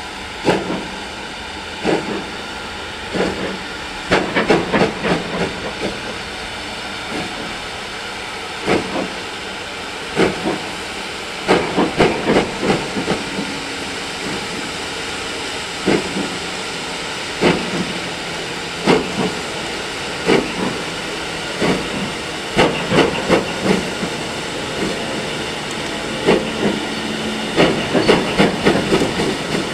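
Steam train: a steady hiss of steam, broken every few seconds by short clusters of sharp clacks.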